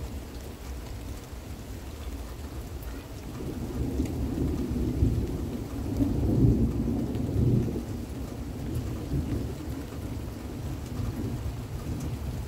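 Thunder rolling in a long low rumble that builds a few seconds in, is loudest about halfway through and dies away, over steady rain.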